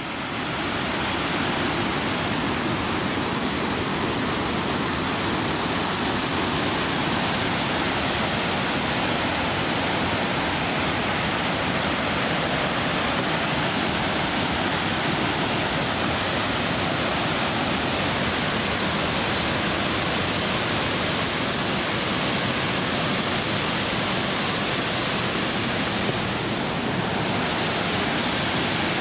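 Waterfall cascading over rock ledges: a steady, unchanging rush of falling water.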